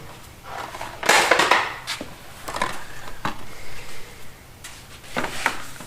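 Handling noises of hands and tools at work: a rustling scrape about a second in, a few sharp clicks, and another short scrape near the end.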